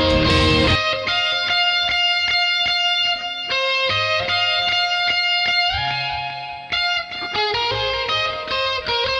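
Electric guitar played through a Vox AC30 amp simulation: a brief strummed chord, then picked single notes and arpeggios that ring out cleanly.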